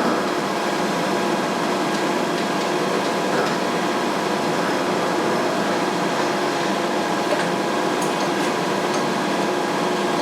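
Milling machine running steadily, its cutter taking a light pass of about 40 thou across a nut to thin it down into a lock nut. A few faint clicks sound over the steady hum.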